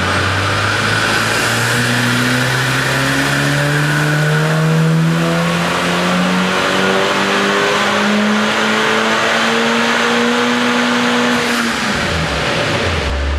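Volkswagen Golf R (Mk7) turbocharged four-cylinder, fitted with a Racingline stage 3 turbocharger, intake and downpipe, making a full-throttle pull on a chassis dyno. The revs climb steadily for about eleven seconds, then the throttle is lifted and the pitch drops away near the end.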